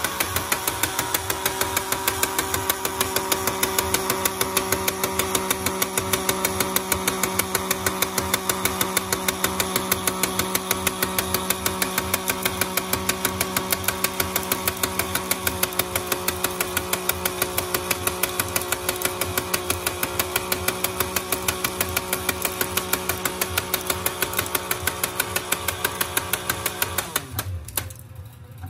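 Electric motor of a Lionel toy-train conveyor loader accessory running: a steady hum with a fast, regular clatter from the belt drive. It stops suddenly near the end.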